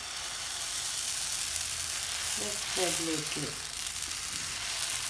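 Dosa batter sizzling as it is ladled onto a hot dosa pan. A steady frying hiss builds over the first second and holds.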